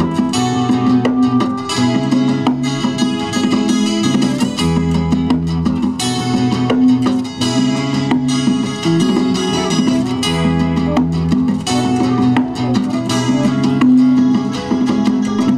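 Live band playing an instrumental passage: strummed acoustic guitars drive a steady rhythm over held bass notes.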